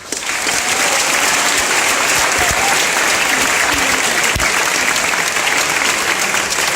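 A large crowd applauding and cheering, loud and steady, starting abruptly at the end of a speech and recorded on a phone.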